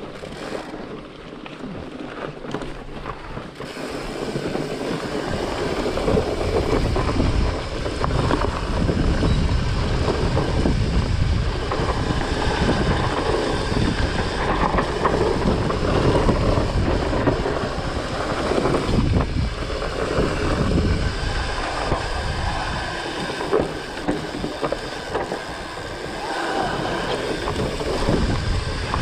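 Wind rushing over the microphone and fat tyres rumbling over a dirt trail as a Trek Farley 9.6 fatbike is ridden, louder from about four seconds in.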